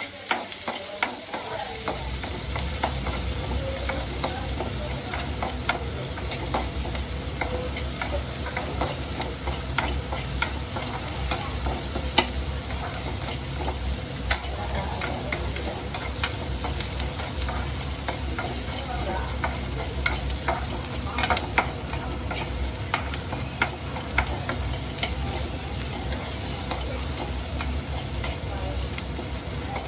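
Noodles being stir-fried in a pan: a steady sizzle with frequent clicks and scrapes of a spatula against the pan. A steady low hum sets in about a second in.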